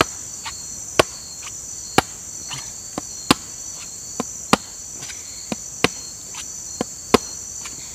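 Repeated sharp chopping knocks, about one to two a second with some much louder than others, as a blade is struck into a hard wild fruit (kepayang) to split it open. Under them runs a steady high chorus of crickets and other insects.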